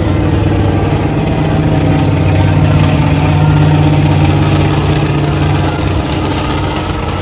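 Aircraft flying overhead: a loud, steady low engine drone that swells to its loudest about halfway through and then eases off.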